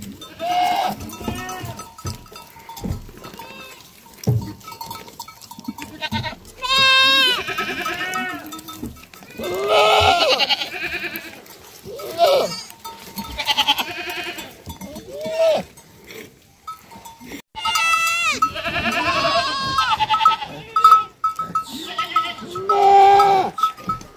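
Goats bleating again and again in long wavering calls, with a bell clinking now and then between them.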